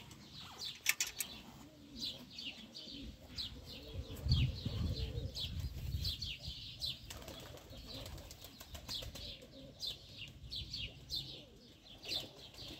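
Pigeons flapping their wings, with birds chirping in short, high, falling calls two or three times a second.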